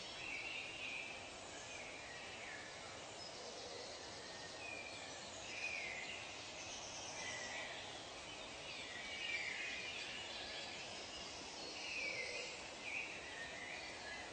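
Forest soundscape: many short bird calls and chirps over a steady hiss, several of them falling in pitch, overlapping and repeating throughout.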